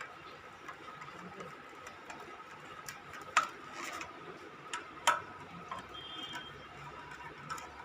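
A few sharp clicks and knocks, the loudest about three and five seconds in, over a faint steady high-pitched hum.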